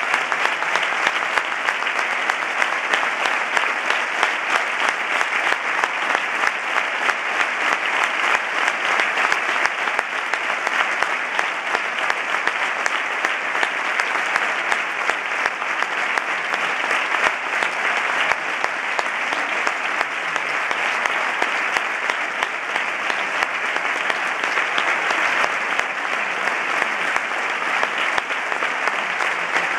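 A large audience applauding: dense, steady clapping that keeps an even level without pause.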